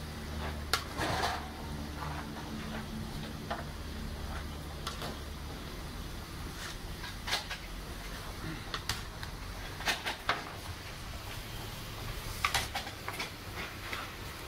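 Scattered sharp clinks and scrapes of a steel spoon against steel platters as rice pulao is spooned into a whole roasted lamb, over a low steady hum.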